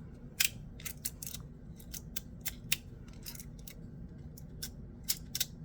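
PdEdc fidget slider clicking as it is slid back and forth by hand: sharp, irregular clicks about two a second, with a short lull in the middle.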